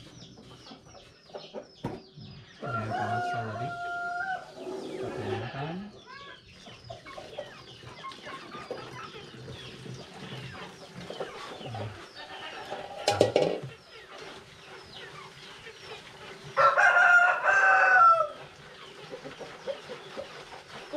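A rooster crowing twice, about 3 seconds in and again near the end, each a held call lasting a second or two; the second crow is the loudest. A short loud clatter comes about halfway through.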